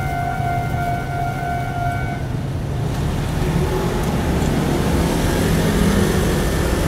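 Level-crossing warning alarm ringing a steady repeating tone, cutting off about two seconds in. Then a broad rumble of road traffic builds up and grows louder toward the end.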